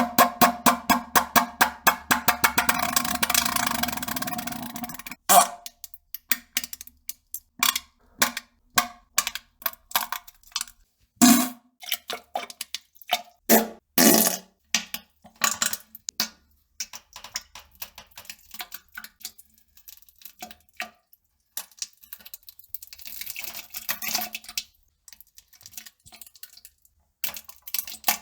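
Sputtering flatulence: a long, rapid rattling fart over the first five seconds or so, then a scattered run of short sputters and pops.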